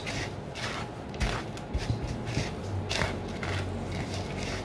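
Dry breadcrumbs rustling and scraping against a mixing bowl as they are rubbed and tossed by hand in repeated strokes, about once or twice a second, working ube flavouring through the crumbs to colour them.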